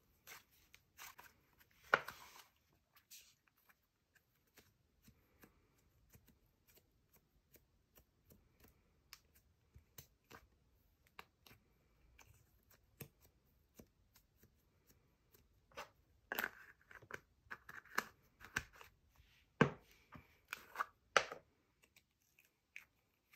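Soft ice cream slime squished and kneaded by hand, giving faint sticky crackles and small clicks, then pressed into its plastic tub. A denser run of louder plastic clicks and crackles comes near the end as slime tubs are handled and a lid comes off.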